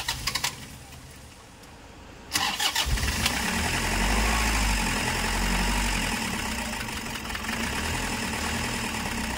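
Toyota Hiace's 2KD four-cylinder common-rail diesel cranked by the starter about two seconds in, catching and then running at idle. It is a hard-starting engine that keeps stalling, with injector feedback values out of spec that the mechanic takes as signs of injector leakage.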